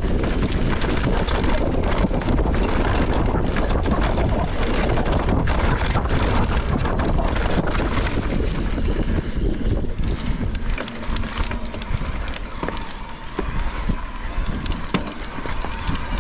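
Wind buffeting the microphone of a mountain bike descending a dirt singletrack, with tyres on loose dirt and frequent short clicks and knocks as the bike rattles over bumps.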